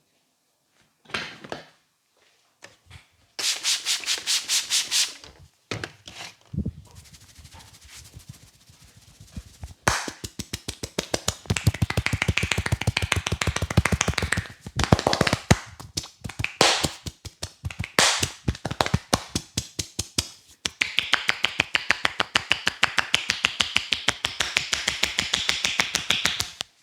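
Fast rhythmic hand strokes of a head massage: quick repeated slapping and rubbing on the scalp and hair, in several long runs with short pauses between them.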